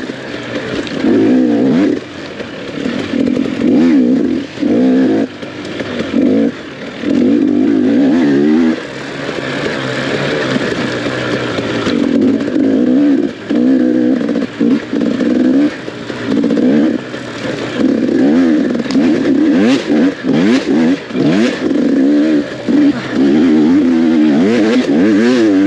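Off-road dirt bike engine revving hard and easing off over and over, its pitch rising and falling as the throttle opens and closes every second or two, with a few short knocks near the end.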